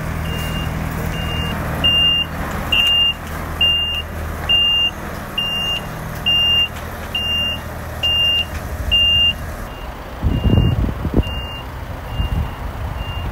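A lorry's reversing alarm beeping a single high tone at a steady rate, loudest from about two to nine seconds in, then fainter. A diesel engine runs low underneath for the first few seconds, and wind buffets the microphone near the end.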